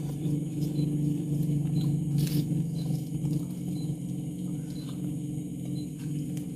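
Eating rice with the fingers from a plate: a brief scrape a little over two seconds in, over a steady low hum, with faint short high chirps about once a second.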